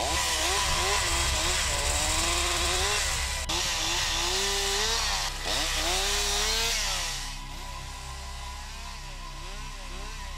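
Petrol chainsaw cutting through a log, its engine revving up and down under load, with two brief dips as the cut eases. After about seven seconds it backs off and runs much quieter.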